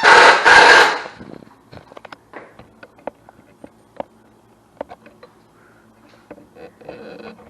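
Impact driver running in a loud burst of about a second as it drives a screw into a 2x4, followed by scattered light knocks and clicks.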